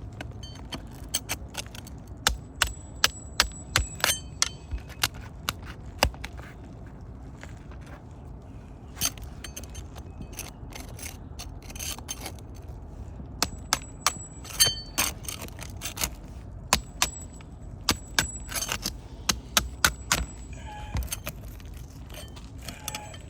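Sharp metallic taps and clicks from hand tools prying and tapping at asphalt shingles and their nails, a few a second, some with a short metallic ring, in two busy runs with a quieter pause in the middle.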